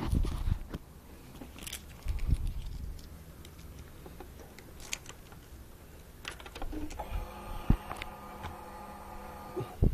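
Clicks and rattles of the ignition key being handled on a Suzuki GSX-R1000. About seven seconds in, a steady electric whirr starts as the ignition is switched on: the fuel pump priming, with a sharp click just before it ends.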